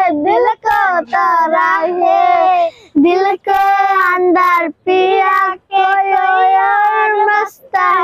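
Young girls singing a Hindi song unaccompanied, in sung phrases of a second or two with short breaks for breath.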